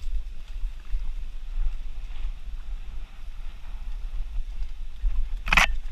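Mountain bike riding a dirt singletrack, heard from a helmet-mounted camera: steady low wind buffeting and rumble on the microphone, with faint ticks and rattles from the bike over the trail. A brief, loud rasping noise near the end.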